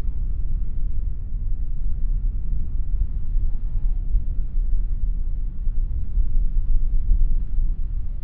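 Wind buffeting the microphone: a steady, fluttering low rumble, with a faint hiss of open-air sea ambience above it.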